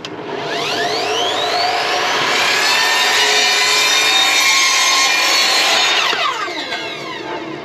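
Evolution sliding mitre saw spinning up with a rising whine and cutting through a wooden board, then winding down with a falling whine near the end.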